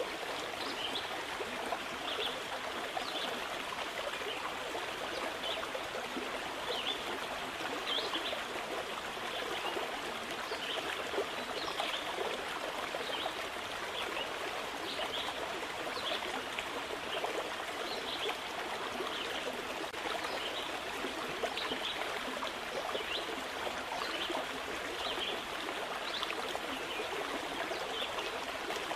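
Flowing stream babbling steadily, with many small bright splashes and trickles.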